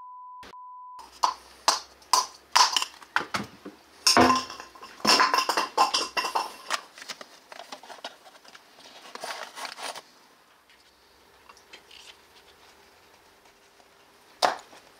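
A steady beep lasting about a second, of the kind used to bleep out a swear word, then metal tools and parts clinking and clattering in quick, uneven knocks. The clinks thin out to occasional faint ticks for the last five seconds, with one sharp click near the end.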